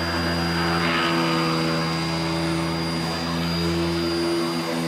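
CNC machine's 48 V, 400 W DC spindle motor running steadily under PWM speed control: a steady hum with a thin high whine above it. The deepest part of the hum drops away near the end.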